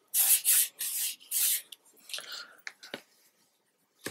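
Fingertip rubbing gilding wax along the black construction-tape edge of a notebook cover: about four quick, rough rubbing strokes in the first couple of seconds, then a few light knocks and rustles as the cover is handled.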